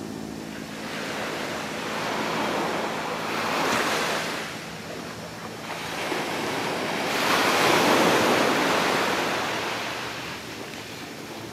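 Small waves breaking and washing up a sandy beach, the surf swelling twice, loudest about four seconds in and again around eight seconds in.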